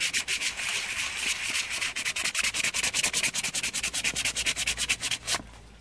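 A freshly whittled wooden spoon being sanded by hand on a sheet of wet-and-dry sandpaper: a rapid scratchy rubbing made of many quick, short back-and-forth strokes, several a second. It stops abruptly near the end.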